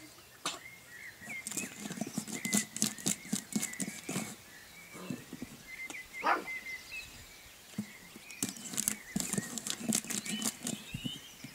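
Golden retriever puppy pawing and scratching at a flat board on paving: irregular scrapes and taps of claws on the board, with one short squeaky call about six seconds in.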